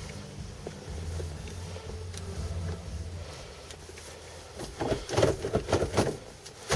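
Cold start of a 1979 Chevrolet Camaro's 305 V8: a low hum, then the starter cranking it over in a short run of uneven strokes near the end, just before it catches.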